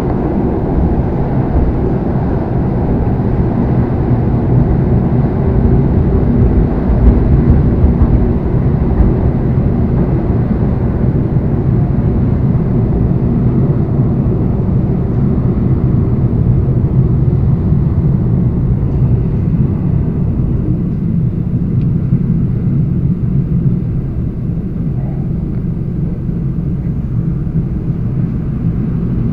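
ED4M electric train running at speed over a steel railway bridge: a steady low rumble of wheels with a hum underneath, easing off slightly near the end.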